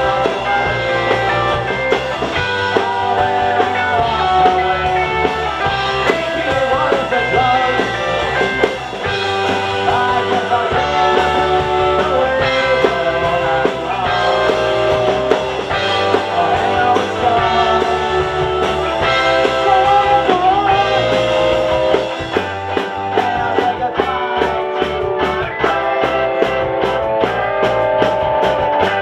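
Live rock band playing: electric guitars, electric bass and drums. About two-thirds of the way through, the drums settle into a steady, quick ticking beat.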